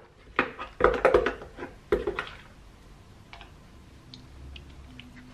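Clatter of a spoon and the plastic jar of a blender being handled: several sharp knocks in the first two seconds or so, then a few faint small clicks.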